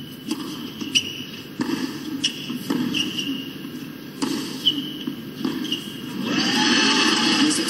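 Tennis rally on a hard court: racket strikes on the ball and sneaker squeaks on the court surface, several in the first six seconds. About six seconds in, loud crowd noise swells up as the point ends.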